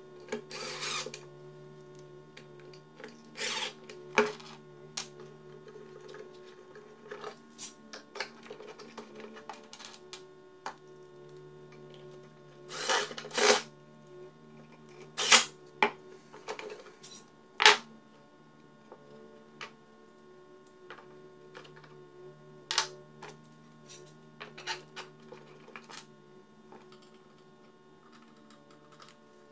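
Cordless drill driving screws into pine in short bursts of about a second, among sharp knocks and clatter from handling the boards, clamp and screws, over a faint steady hum.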